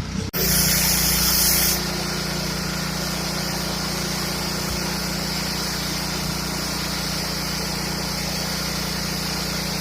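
Gas-engine pressure washer running steadily, its high-pressure water jet hissing against concrete pavement. The hiss is stronger for the first second or so, after a brief dropout near the start.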